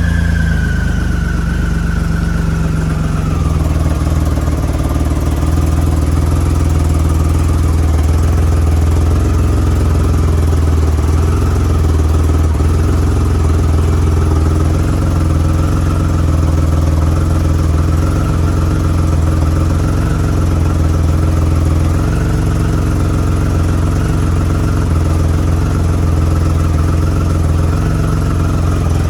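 2009 Triumph Rocket III's 2.3-litre three-cylinder engine running on its first start after being revived with a new battery. The revs drop over the first few seconds and then it runs at a steady idle.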